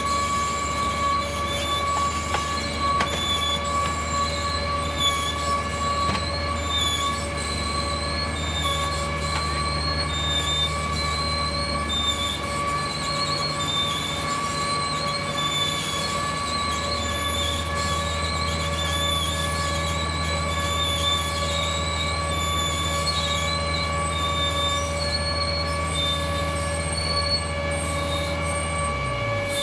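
Auger piling rig running on site together with a mini excavator: a low diesel engine note under a steady, high-pitched whine, with irregular short high chirps over the top. Just before the end, the low engine note glides down and fades.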